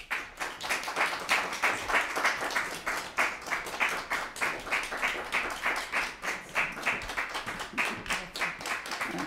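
A small audience applauding, the separate claps plainly distinct, breaking out suddenly at the start.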